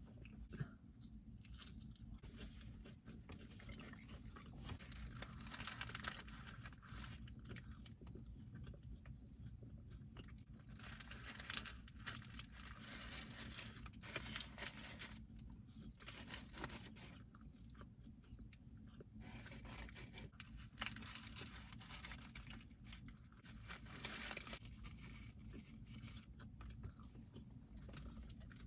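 Close-up chewing and crunching of food, coming in repeated bouts of mouth noise with crisp crunches.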